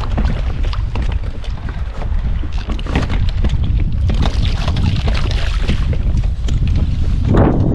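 Wind buffeting the microphone on a kayak at sea, a steady heavy rumble, with scattered splashes and knocks of water around the hull.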